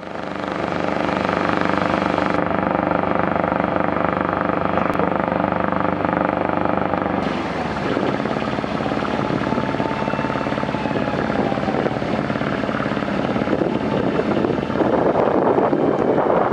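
A boat's inboard engine running steadily at cruising speed, heard close up from on board. After about seven and a half seconds it gives way to a noisier mix of engine and rushing water as a boat motors past, growing louder near the end.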